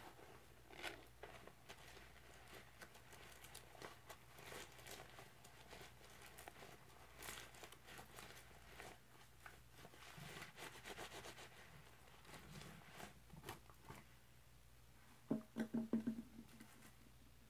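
A gloved hand squeezing and squishing a sponge in a bucket of sudsy powder-and-liquid cleanser paste, with faint wet squelching and the crackle of foam bubbles. A brief run of louder knocks comes near the end.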